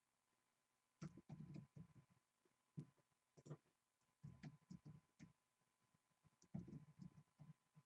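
Faint computer keyboard and mouse clicking, in short clusters of taps with single clicks between them.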